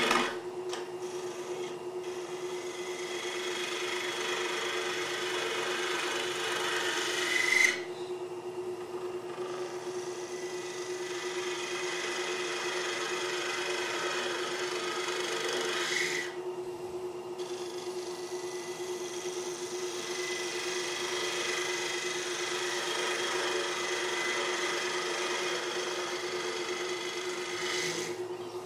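Lathe turning soft white maple while a turning tool cuts it: a steady cutting hiss over the lathe's steady hum. The cutting stops twice, about a third of the way through and just past halfway, while the lathe keeps running.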